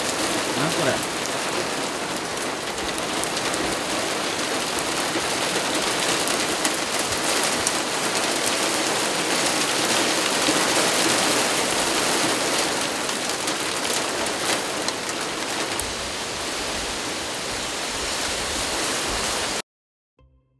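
Heavy rain mixed with hail pelting the bonnet of a vehicle and the ground: a dense, steady hiss of rain with many small ticks of hailstones. It cuts off suddenly near the end.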